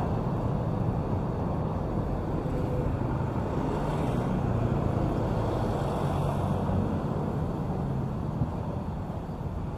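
Steady city street ambience, mostly a low rumble of traffic, with no distinct events standing out.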